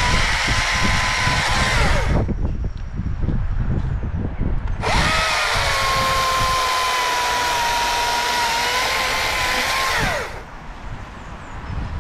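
STIHL MSA 220 C battery chainsaw running at full speed with a steady electric whine. It spins down about two seconds in, is triggered again about five seconds in, runs for about five seconds more, then winds down.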